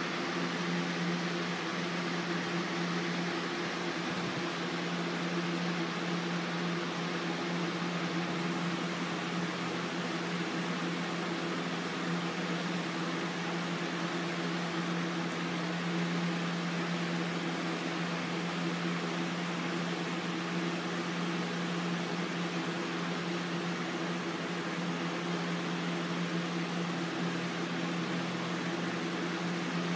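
Electric fan running steadily: a constant low hum over an even rush of air.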